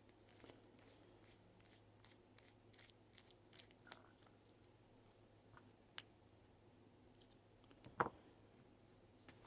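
Near silence with scattered faint light clicks from handling a wristwatch and small tools, and one sharper click about eight seconds in.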